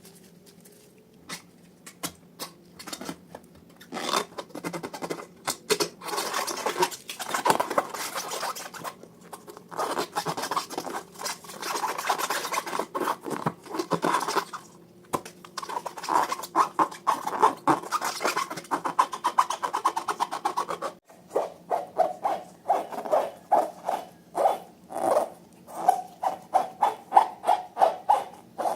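Balloon rubber and slime being handled: rubbing and scraping for most of the time, then from about two-thirds of the way in, quick regular squeaky strokes, about two a second.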